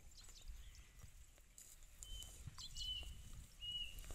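Cow cropping and chewing dry grass close by: a run of soft tearing and crunching sounds. From about halfway through, a bird calls with short, repeated high whistled notes.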